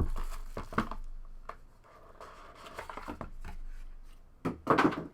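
A cardboard trading-card box and its packaging being opened and handled, with scattered clicks and light scraping and a short louder rustle near the end.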